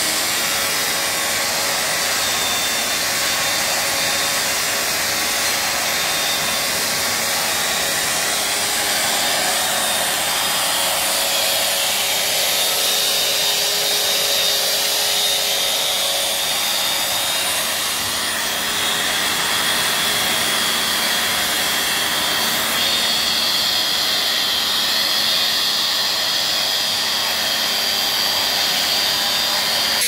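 Angle grinder with an abrasive polishing disc running steadily against a machined metal ring: a continuous motor whine over an even grinding hiss.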